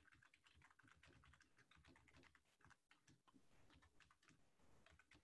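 Near silence with faint, irregular computer-keyboard typing clicks, several a second.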